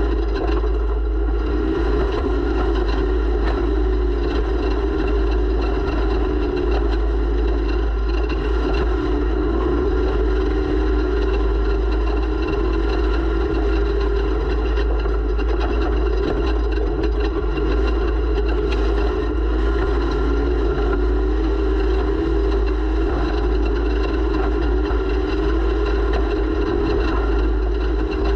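Snowmobile engine running steadily at a fairly constant pitch that wavers slightly, with a constant deep rumble underneath.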